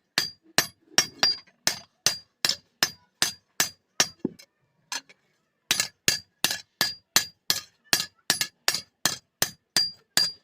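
Hand hammer striking a steel blade on an anvil in a steady rhythm of about two and a half blows a second, each blow with a bright metallic ring, as the katari blade is forged. The blows pause for about a second and a half midway, then carry on.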